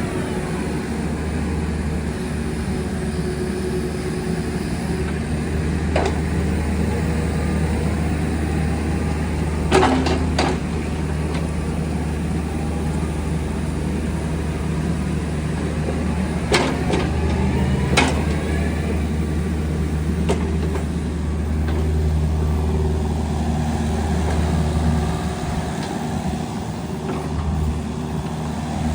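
Kubota KX027-4 mini excavator's diesel engine running steadily, with a handful of sharp knocks scattered through it.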